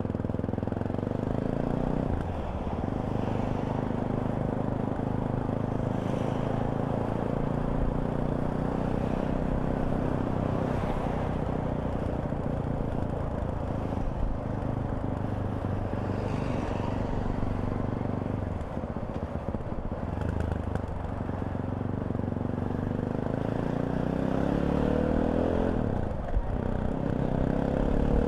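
Fantic Caballero 500 motorcycle engine running under way at a steady pitch. The engine note dips briefly about two seconds in, again about two-thirds of the way through, and once more near the end. Near the end the pitch climbs as the bike accelerates.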